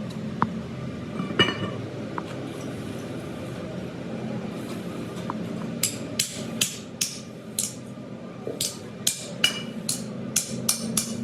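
A hammer striking metal, a few single knocks and then a run of about a dozen sharp blows roughly two a second in the second half, some with a short metallic ring, over a steady low workshop hum.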